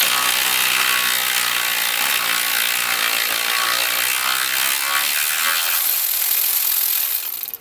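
Cordless electric ratchet whirring steadily as it spins the nut off a tie rod end's ball stud, stopping suddenly near the end.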